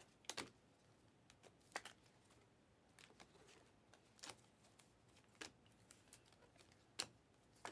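Faint snaps of glossy Panini Optic basketball cards being flicked one at a time off a stack in the hands, about six in all, roughly evenly spaced.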